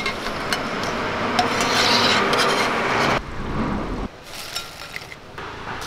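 Crisp fried pappadam pieces rustling and rasping against a perforated steel skimmer over hot frying oil, a dense rustle that cuts off about three seconds in. After that come lighter crackles and clicks as the crisp pieces are tipped into a glass bowl.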